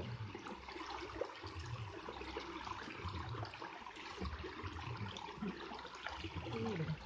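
Shallow stream water trickling steadily.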